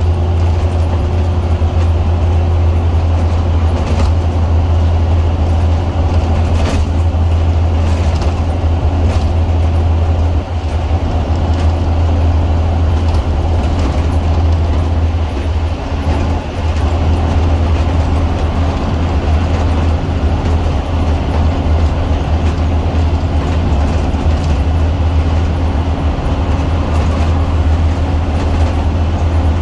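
Scania Omnicity double-decker bus heard from inside while it runs at a steady speed: its Scania DC09 9-litre five-cylinder diesel gives a steady low drone, with road and tyre noise and a few light clicks from the interior.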